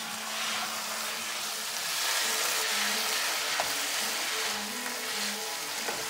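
Deer meat roast frying and sizzling in a pan as it is stirred and turned with a wooden spatula, the sizzle swelling and easing with each stroke. The masala has cooked down nearly dry. Two light clicks come past the middle.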